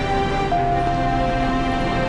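Background music: held notes and chords changing every half second or so, with no other sound clearly above it.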